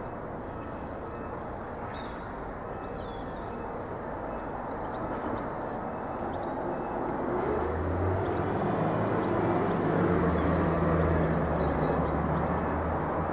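Steady street and traffic noise that grows louder from about halfway, when a low steady hum joins it. Faint bird chirps come and go above it.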